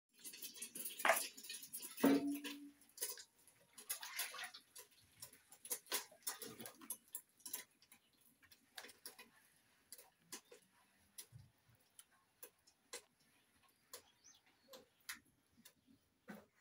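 Wood fire crackling under a cooking pot, with irregular sharp pops and clicks. The first four seconds are busier and louder, with some knocks and scraping mixed in.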